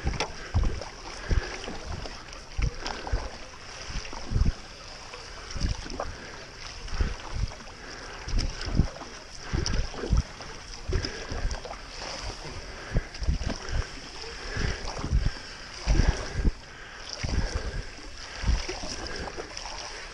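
Stand-up paddle strokes on calm water: a low thump and a swish of water about once a second as the blade dips and pulls.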